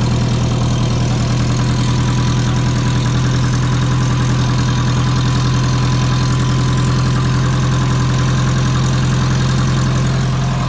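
Subaru EJ20 flat-four engine on a compound twin-turbo setup idling steadily, with an exhaust leak that the owner pins on the 50 mm external wastegate.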